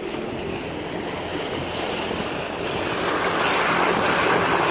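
Water rushing and splashing against the side of a moving motorboat's hull, with wind on the microphone and the boat's engine humming low underneath. The splashing grows louder about three seconds in.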